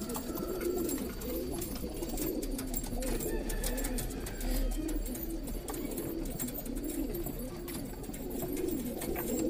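Several Indian high-flyer roller pigeons cooing continuously, their low warbling calls overlapping one another, with faint scattered ticks in the background.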